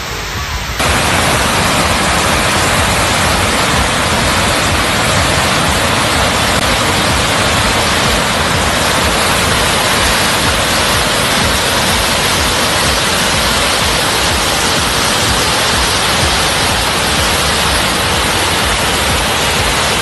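Loud, steady rushing of a fast muddy floodwater torrent, starting suddenly about a second in.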